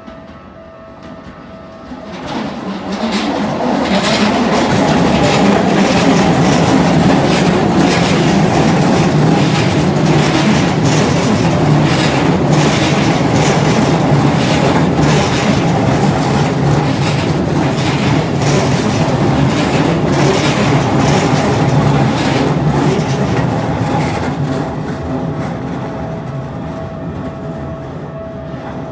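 Keikyu Line electric train passing over a level crossing, its wheels clacking over rail joints, loud for about twenty seconds and then fading away. The crossing's warning bell rings before the train arrives and again as it fades.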